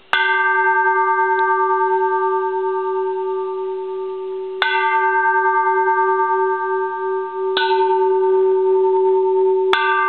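Small bronze Japanese Buddhist temple bell struck four times, a few seconds apart. Each strike rings on with several steady overtones over a low hum that wavers slowly in loudness.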